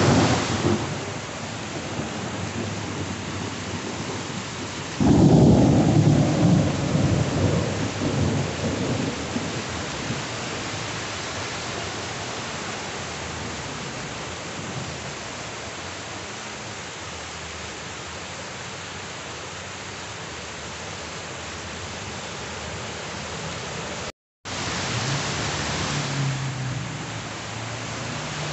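Heavy rain pouring down onto a flooded street with a steady hiss. About five seconds in, a loud rumble of thunder swells and fades away over several seconds. The sound cuts out briefly near the end.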